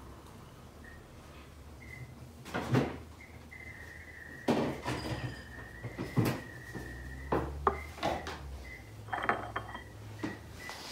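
Carbide burrs being handled around a glass mason jar and set down on a benchtop: a series of separate light clinks and knocks, with a faint steady high tone for a few seconds in the middle.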